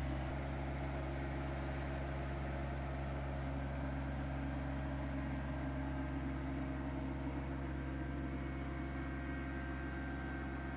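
Compact tractor engine running steadily at an even speed as the tractor slowly reverses with a heavy load raised in its front loader.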